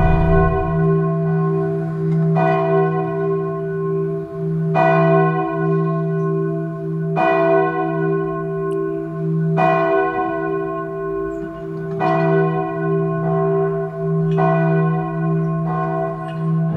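Church bell tolling slowly and evenly, a new stroke about every two and a half seconds, each ringing on into the next.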